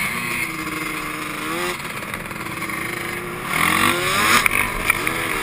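Quad (ATV) engine being ridden over sand, running fairly steady, then revving up and down several times in quick succession in the last couple of seconds, with wind noise on the microphone and a couple of sharp knocks near the end.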